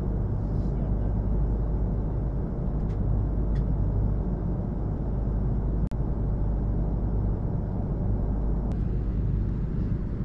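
Steady low rumble of a jet airliner cabin in flight, engine and airflow noise, cutting out for an instant about six seconds in.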